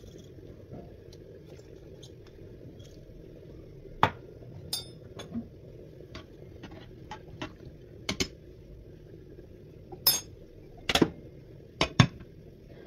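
Kitchen utensils and dishes clinking and knocking during food preparation: a string of separate sharp clinks that starts a few seconds in, the loudest near the end, over a steady low background hum.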